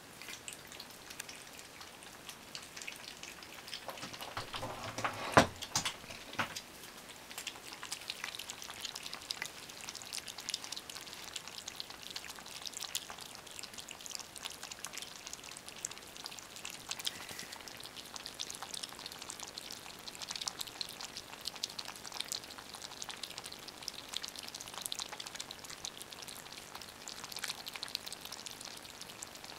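Three kittens lapping milk from a plate: a fast, steady patter of small wet clicks. A single sharp knock stands out about five seconds in.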